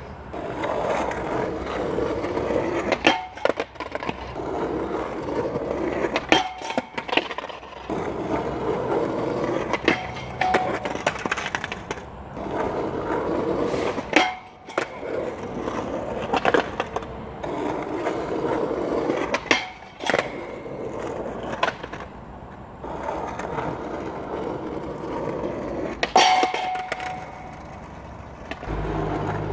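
Skateboard wheels rolling over rough asphalt as the board is ridden repeatedly at a low square metal flat bar. Several sharp clacks of the board striking the bar and the pavement come at intervals, each followed by more rolling.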